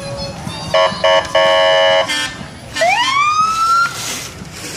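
Emergency vehicle horn giving two short blasts and one longer blast about a second in, then a siren winding up in a rising wail that holds high for about a second.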